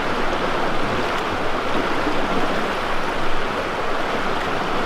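Steady rush of fast, shallow river current pouring past boulders.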